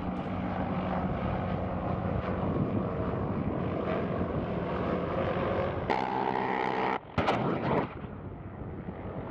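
Little Bird helicopter flying past with a steady rotor and turbine sound. About six seconds in, it is broken by loud, rapid bursts of gunfire: a fast buzzing burst, then a sharp bang and a second burst about a second later.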